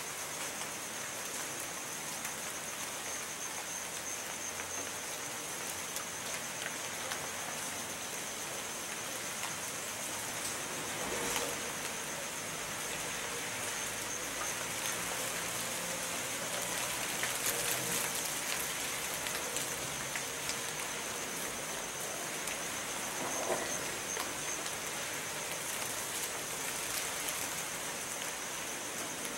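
Steady rain falling, an even hiss with no let-up, with a thin steady high-pitched tone running underneath.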